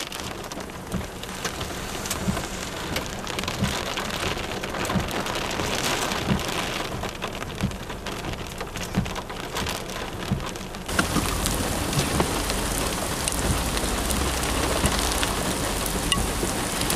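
Rain hitting a vehicle's windshield and body: a steady hiss dotted with many separate drop impacts. About eleven seconds in the sound cuts abruptly to a louder, steadier rain noise with a low rumble underneath.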